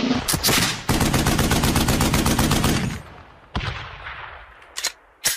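Machine-gun fire sound effect: a rapid burst of shots lasting about two seconds, followed by three single shots spaced out toward the end.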